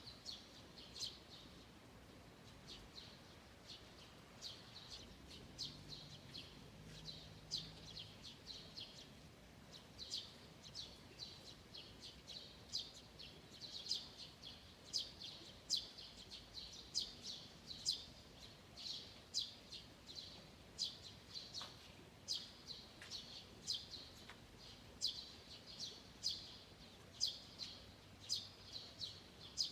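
Small birds chirping: many short, high chirps repeating irregularly, a little sparse at first and growing busier after about ten seconds.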